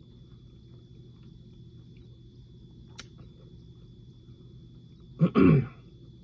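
A man clears his throat once, about five seconds in: a short sound and then a longer one, falling in pitch. Before it there is only a faint steady hum and a single small click about three seconds in.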